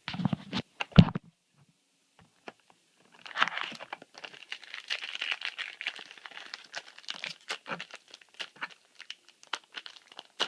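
A few handling knocks in the first second, one of them sharp, then from about three seconds in a foil booster-pack wrapper crinkling and tearing with many small crackles, as a stubborn pack is worked open by hand.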